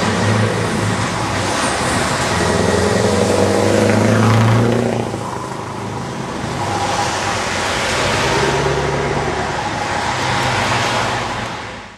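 Scania 164 V8 truck engine pulling under load: the engine note climbs, drops back about five seconds in as it shifts gear, then climbs again. Heard from a vehicle following close behind the truck.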